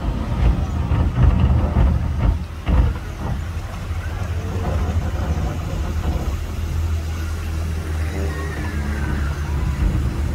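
Small ride boat's motor running steadily with a low hum, heard from on board, with a few knocks in the first three seconds.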